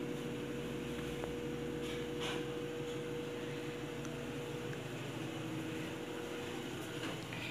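Steady hum of a running motor, with a few steady tones in it; the highest tone drops out about five seconds in.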